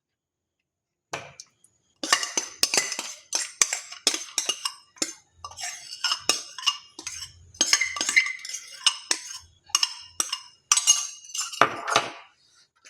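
A spoon scraping and clinking against a steel plate in quick, irregular strokes as curd is spread over papris. The strokes start about a second in and go on almost to the end.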